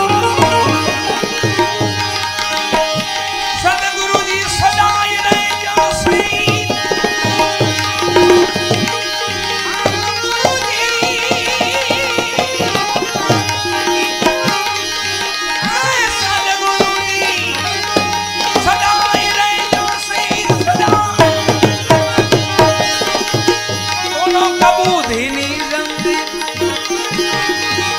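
Gujarati devotional bhajan music with fast tabla drumming under a melodic accompaniment.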